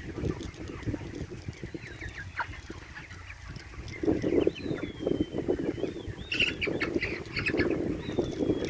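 Chickens clucking and calling, with thin high calls that slide in pitch and a busier flurry of short calls about six to eight seconds in, over a low rumble.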